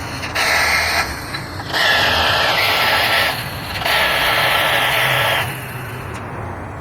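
A workshop tool running in three bursts of about one to one and a half seconds each, starting and stopping abruptly with a hissing sound, over a steady low hum.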